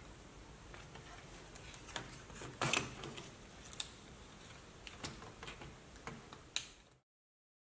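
Irregular small clicks and knocks of hard objects being handled, with a louder clack about two and a half seconds in. The sound cuts off abruptly near the end.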